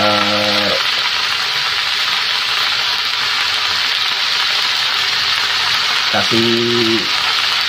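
Choy sum and sliced meatballs sizzling steadily in a hot wok as they stir-fry, a continuous even hiss.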